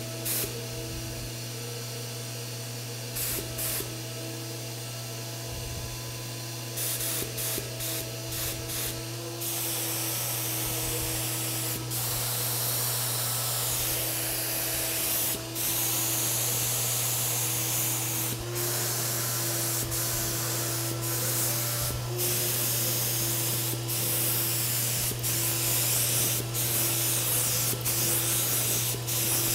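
HVLP paint spray gun spraying, a steady hiss of air and paint over the constant hum of its air supply. The hiss grows stronger about nine seconds in and then dips for a moment every few seconds.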